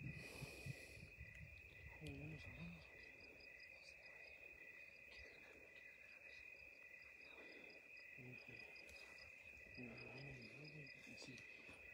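Faint night insects, crickets by the sound, chirping steadily: a continuous high trill with a quick, regular pulsed chirp beneath it.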